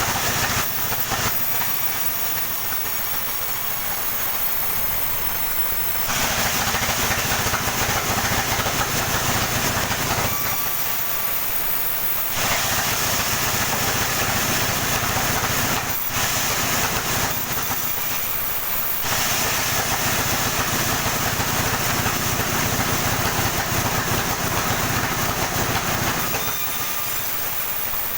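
Sawmill saw running and cutting through coconut palm trunk, with a steady machine hum underneath. The sharper, louder hiss of the cut rises and falls in stretches of a few seconds as the saw goes into and out of the log.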